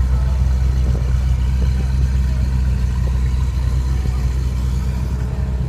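A supercar engine idling with a steady, deep, even rumble.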